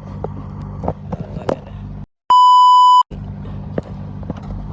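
Steady car-interior hum with a few small clicks and knocks. About two seconds in, the sound cuts out completely and a loud, steady, high-pitched edited-in bleep tone plays for under a second, then the car hum comes back.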